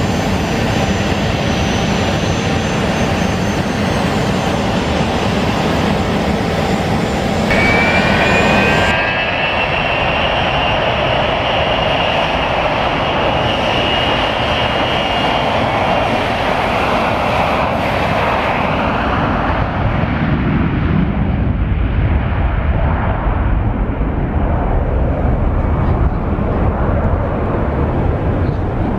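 Business-jet turbofans: a high, steady engine whine while taxiing. From about twenty seconds in it gives way to a deep rumble as a Bombardier Global jet runs its engines up and rolls past on its takeoff run.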